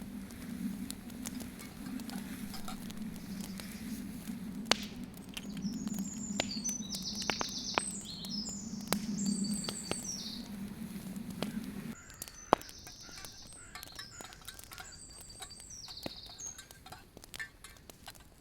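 Birds singing in short repeated chirping phrases, over light clicks and knocks of camp cookware. A low steady hum under them cuts off suddenly about twelve seconds in.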